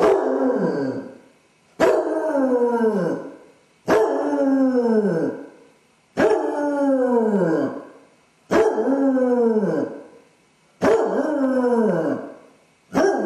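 Basset hound howling over and over: about six long howls, one every two seconds or so, each starting abruptly and sliding down in pitch. It is the distress howling of a dog with separation anxiety, left home alone.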